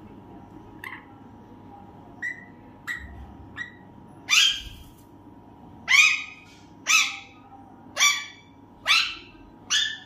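Pet parakeet calling: a few soft short chirps, then a run of six loud, harsh squawks about a second apart, each falling in pitch, which the owner takes for attempts to say "Maa".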